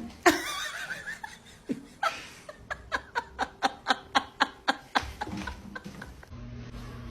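A person laughing in a quick run of short bursts, about five a second.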